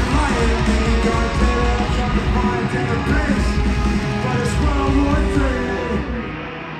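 Punk-styled rock music with guitar and singing, loud and dense throughout, dipping slightly near the end.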